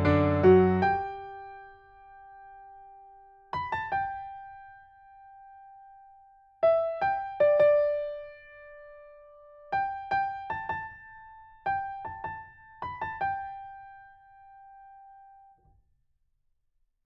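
Background piano music: a fuller passage dies away about a second in, then sparse single notes and short groups of notes ring out and fade, ending shortly before the close.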